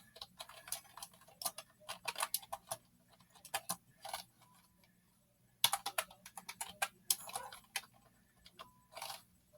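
Keystrokes on an ONN computer keyboard: irregular runs of clicks as someone types, with a pause of about a second in the middle.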